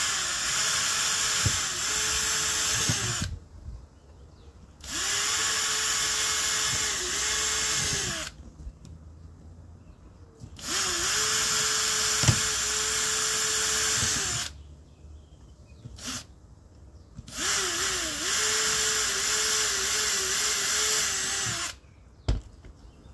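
Power drill running in four bursts of three to four seconds each, with short pauses between. Its steady whine dips briefly in pitch within each burst as the bit or screw takes load.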